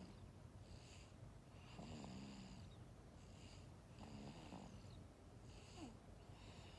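Faint snoring: a breath about every second, each with a high whistling note, some with a low rattling stack underneath.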